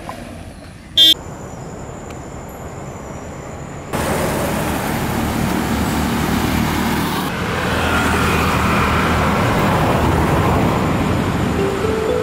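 Road traffic as vehicles, a motorcycle among them, drive past: a steady rush of engines and tyres that starts suddenly about four seconds in and grows louder around eight seconds. Before it there is quieter street noise with one brief high toot about a second in. Soft plucked music enters at the very end.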